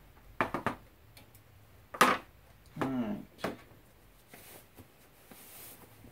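Handling knocks on a wooden desk: a quick cluster of clicks, then a sharp knock about two seconds in as a handheld infrared thermometer is set down, and a lighter click shortly after.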